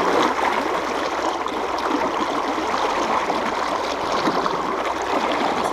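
A fast river current rushing steadily.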